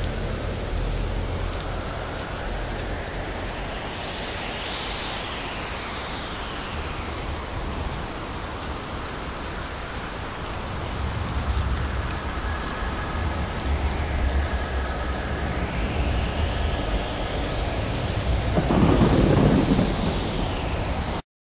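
Steady rain with rumbling thunder, likely a rainstorm ambience laid under the closing titles. It includes a louder thunderclap about nineteen seconds in, and the sound cuts off suddenly near the end.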